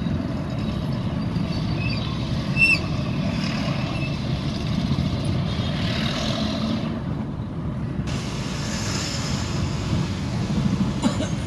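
Road traffic heard from a car moving slowly in dense city traffic: a steady low rumble of engines and tyres, with a brief high squeak a little under three seconds in.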